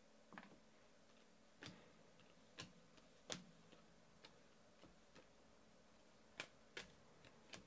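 Faint, irregular clicks and ticks of glossy trading cards being flipped and slid against one another in the hands, about a dozen over the span, the sharpest a little over three seconds in.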